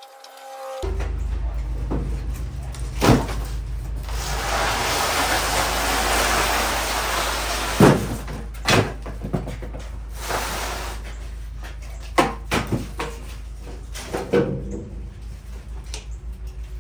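Firewood splits being handled and stacked, knocking and clunking against each other at irregular moments, over a steady low hum; a rushing noise swells a few seconds in and fades.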